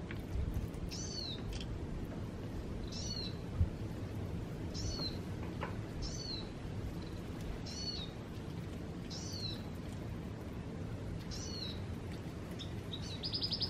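A short, high, arched animal call, repeated about every one to two seconds over a steady low background noise, with a single sharp knock a few seconds in and a rapid high trill near the end.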